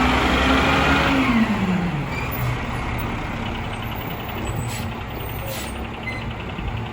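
Mack LR garbage truck's diesel engine running at raised revs, then dropping back to a low idle about a second and a half in. Two brief faint hisses come near the end.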